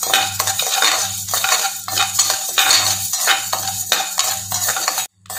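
Metal spatula scraping round a wide metal kadai, stirring raw rice being dry-roasted, the grains rattling against the pan in quick repeated strokes, about two a second. The stirring breaks off abruptly near the end.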